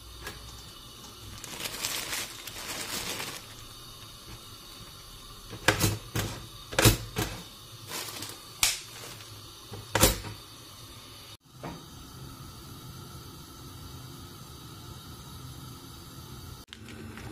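Plastic bread bag rustling, then a run of sharp clicks and knocks as bread slices go into the slots of a stainless steel toaster, followed by a steady faint hum.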